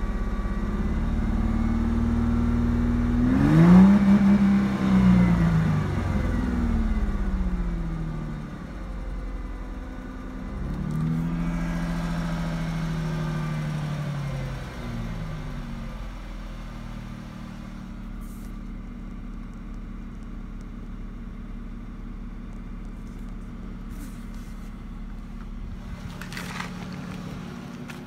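A 2004 Ford Mustang's 3.8-litre V6 running, revved up briefly twice in the first half and falling back to idle each time, then idling steadily. The engine has an idle misfire that was traced to a faulty ignition coil pack.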